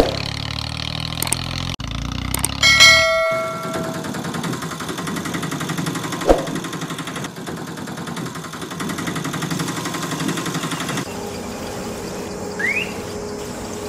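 A bell-chime sound effect rings out about three seconds in, just after a couple of clicks, over a steady background hiss. A short rising whistle sounds near the end.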